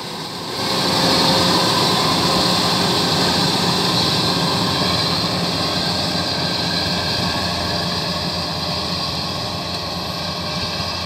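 Kubota DC-93 rice combine harvester running while cutting and threshing: a steady diesel engine note with whirring machinery and a strong hiss on top. The sound rises sharply about half a second in, then slowly fades as the combine pulls away.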